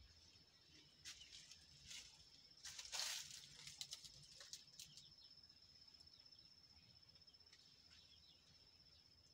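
Faint, steady high-pitched insect trill. A few short clicks or chirps come in the first half, and a brief rustling burst about three seconds in is the loudest sound.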